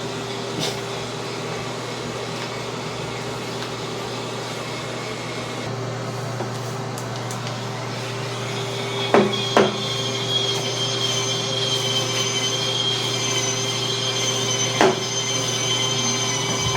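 Electric spin scrubber running steadily while scrubbing. About halfway in, a high whine comes in, and there are a few sharp knocks.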